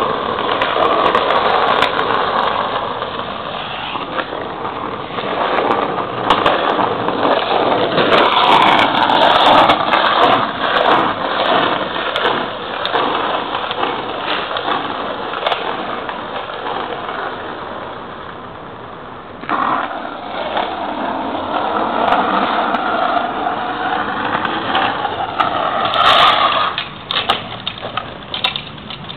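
Hard plastic wheels of a Green Machine-style low ride-on trike rolling fast on asphalt, a continuous rattling roll with many small clicks. It breaks off abruptly about two-thirds of the way through, then picks up again.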